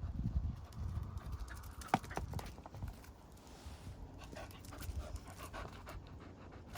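A dog panting, with a short sharp click about two seconds in.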